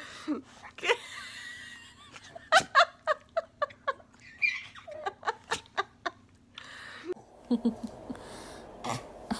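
Baby laughing in a run of short bursts, about three a second, with a few more giggles near the end.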